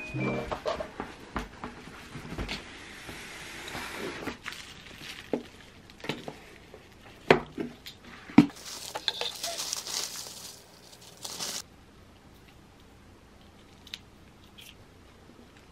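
Unboxing by hand: packaging rustling and crinkling, with taps and knocks of boxes and items set down on a table. It goes mostly quiet for the last few seconds.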